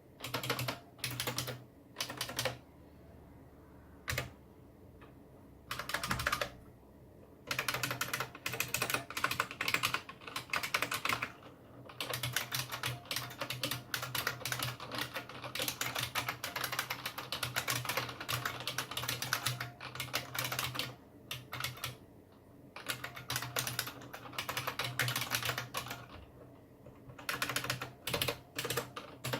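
Typing on a Unicomp Model M keyboard with buckling-spring switches: rapid, loud clicking keystrokes in bursts separated by short pauses.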